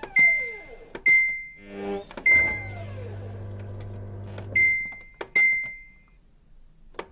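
Samsung washing machine's control panel sounding a series of short, sharp, high electronic beeps, five in all, mixed with falling electronic tones. A steady low hum sets in about two and a half seconds in and stops near the five-second mark.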